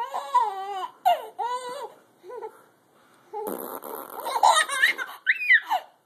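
A baby laughing and squealing, mixed with an adult's funny vocal noises. There are high, wavering calls in the first two seconds, then a louder, noisier stretch from about three and a half seconds with sharp squeals near the end.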